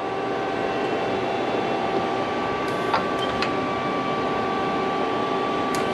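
Takamaz XW130 CNC lathe's gantry loader moving a part over to the turn device: a steady mechanical hum carrying a few steady whining tones, with light clicks about halfway through and again near the end.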